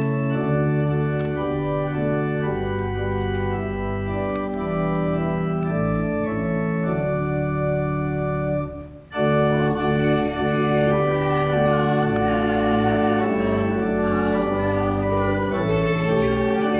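Organ playing held chords that change note by note, with a short break in the phrase about halfway through before it carries on.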